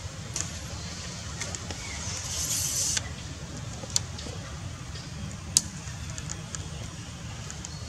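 Outdoor background noise: a steady low rumble, with a short hiss about two seconds in and two sharp clicks, one about four seconds in and a louder one a second and a half later.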